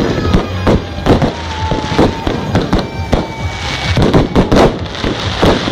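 Fireworks display going off: a dense, irregular run of bangs, several a second, with a thicker cluster of bangs about four seconds in.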